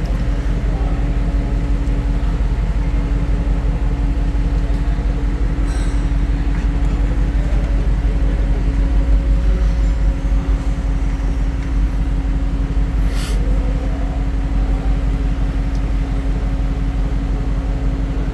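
Mercedes-AMG G63's twin-turbo V8 idling steadily, a constant low rumble with a steady hum over it.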